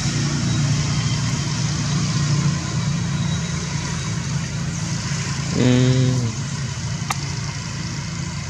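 A motor vehicle engine idling with a steady low hum. About five and a half seconds in, a short pitched call or voice sounds once, lasting well under a second.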